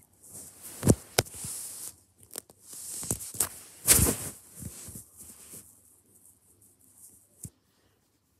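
Close rustling of a hand rubbing a cat's fur and the fleece blanket under it, in bursts, with a few sharp knocks about a second in and again around four seconds; it dies away near the end.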